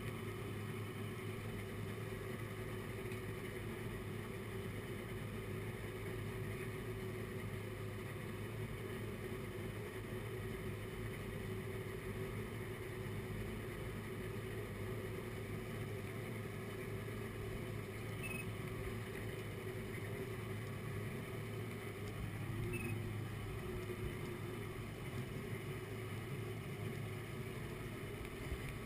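A 175 hp two-stroke Mercury Sport Jet (XR2 motor on a jet pump) running steadily at low idle speed.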